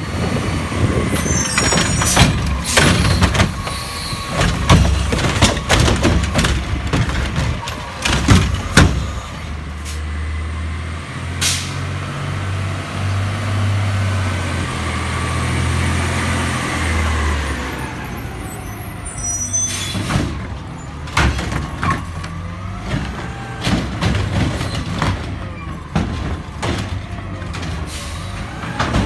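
Garbage truck at work: repeated clanks and bangs, then a stretch of steady diesel engine running with a rising and falling whine, then more clanking. A short high squeal comes near the start and again around two-thirds of the way through.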